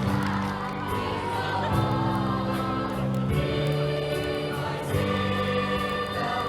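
Music with choral singing: sustained chords held and changing about every one and a half seconds.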